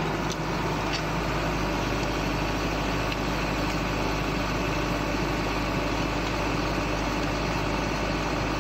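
Tractor engine running steadily, driving a PTO-mounted post hole digger whose auger is boring down into the soil.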